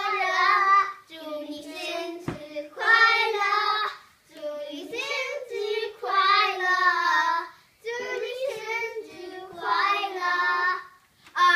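Several young children singing a birthday song together, in sustained sung phrases with short breaks between them.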